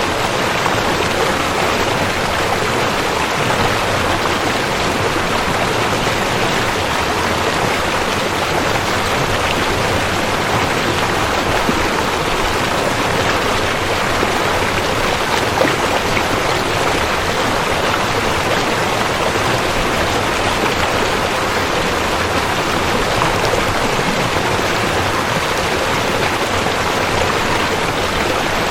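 River water rushing and splashing over rocks, a steady, unbroken sound.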